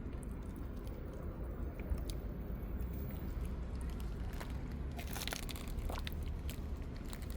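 A cat chewing and crunching food, with scattered small crunches over a steady low rumble.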